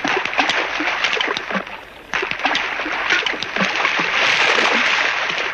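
Groundbait of cooked peas and millet being scattered onto the water: a dense patter of small splashes, with a brief lull about two seconds in.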